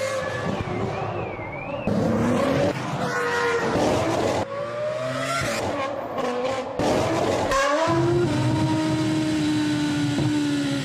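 Ferrari Formula One car engine revving and changing pitch as it accelerates and passes by, in several short shots that cut abruptly from one to the next. For the last few seconds a steadier engine note slowly falls in pitch.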